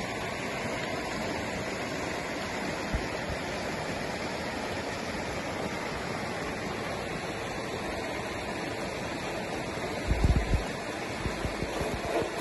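Fast mountain stream rushing over rocks, a steady wash of water. Near the end come a few short, low, dull thumps.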